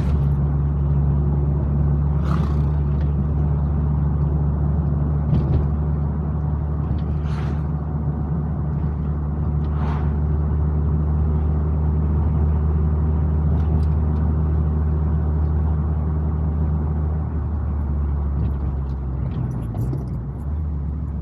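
Car engine and road noise while driving uphill: a steady low drone under load, with a few brief clicks, easing slightly near the end.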